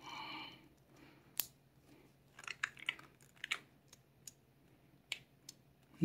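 Faint clicks of a four-digit combination cable bike lock's number wheels being turned by thumb: scattered single clicks and a quick run of them about two and a half to three and a half seconds in, as the digits are worked through one by one to find a forgotten code.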